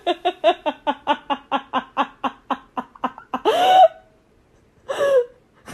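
High-pitched laughter: a long run of quick giggles, about five a second, then two breathy squeals.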